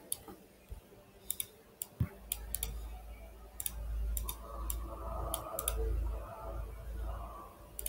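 Computer mouse clicks: about a dozen sharp clicks, singly and in quick pairs, spaced irregularly. A low rumble comes in about two seconds in and runs under them.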